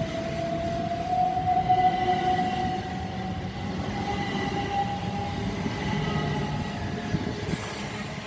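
Two coupled Class 377 Electrostar electric multiple units pulling away, their traction motors giving a whine that rises slowly in pitch as the train picks up speed, then levels off. A steady low rumble of wheels on rail runs underneath as the coaches roll past.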